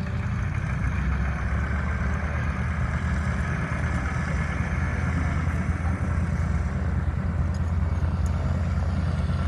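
An engine running with a steady, deep drone that gets a little louder about a second in.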